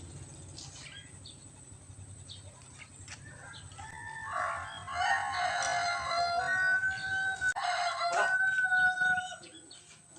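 A rooster crowing: a long drawn-out call about four seconds in, followed at once by a second, shorter one.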